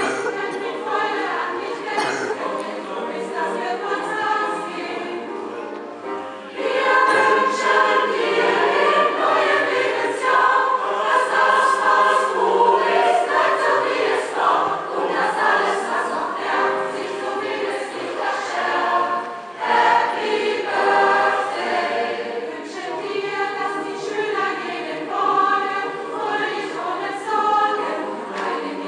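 Mixed choir of adult men and women singing, growing clearly louder about six and a half seconds in.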